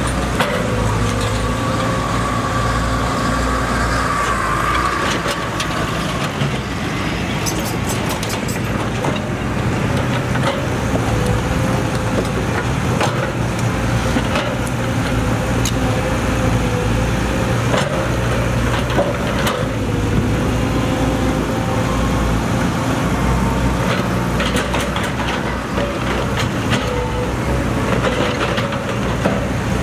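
Caterpillar 312C hydraulic excavator's diesel engine running steadily under load, with a steady whine over its hum. Scattered knocks and cracks come as the bucket works through dirt and tree roots.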